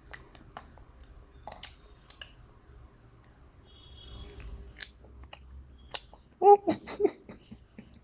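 Biscuits being chewed: scattered crisp crunches and chewing sounds. About six and a half seconds in comes a short voiced sound, the loudest moment.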